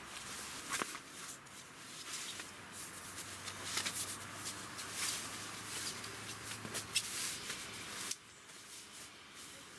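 Rustling and crinkling of a sleeping bag's fabric as it is unrolled and smoothed out by hand over a sleeping pad, in irregular bursts with sharp little crackles; it dies down about eight seconds in.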